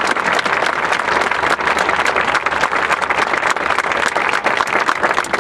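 Crowd applauding, a dense stretch of clapping that greets a placement announcement.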